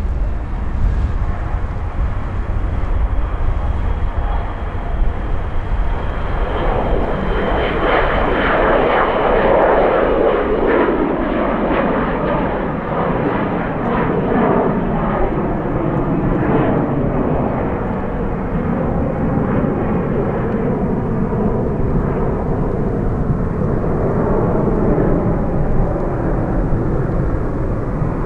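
Jet airliner's engines passing close by. The noise swells about six seconds in and stays loud, with tones that sweep up and down in pitch as the aircraft moves past.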